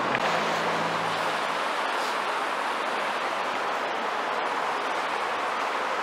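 Steady hiss of passing road traffic, with a low engine hum that fades out in the first second or two.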